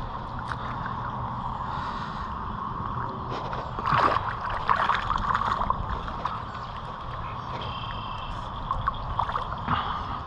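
Water sloshing and splashing, louder for a couple of seconds about four seconds in.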